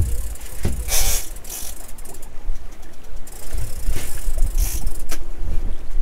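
Fishing reel ratcheting and clicking as a heavy flapper skate is played on a loaded rod, over a steady low rumble.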